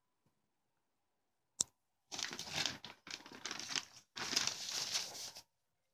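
Pages of a glossy paper leaflet being handled and turned: one sharp tap about a second and a half in, then three stretches of paper rustle of about a second each.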